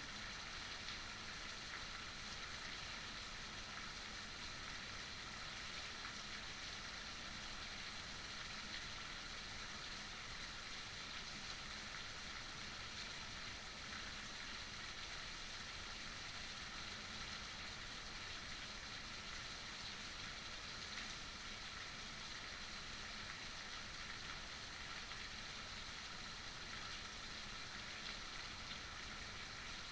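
Steady heavy rain falling, an even hiss of rain without breaks or distinct drops.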